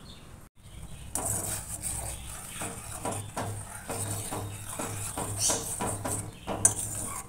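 A steel spoon stirring milk in a stainless-steel saucepan on a gas stove, with irregular scrapes and clinks against the pan and a sharp clink near the end; the milk is heating for kheer.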